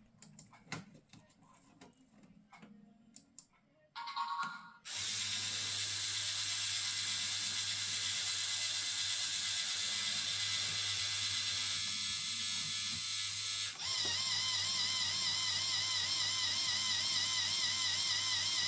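Faint, scattered clicks and ticks of the Lego Technic gondola mechanism. About five seconds in, a loud steady backing track starts and takes over, with wavering tones coming in near the end.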